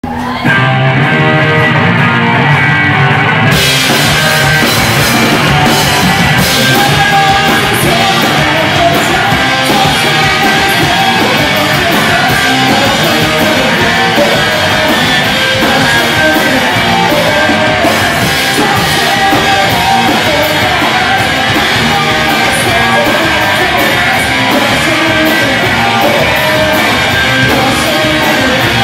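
Two-piece rock band playing live, loud: distorted electric guitar and a drum kit. The guitar plays alone at first, and the drums and cymbals come in about three and a half seconds in.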